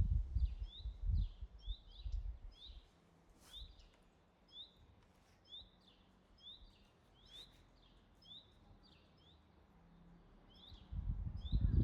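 A small bird chirping over and over, short rising chirps about two a second. Wind buffets the microphone for the first couple of seconds and again near the end.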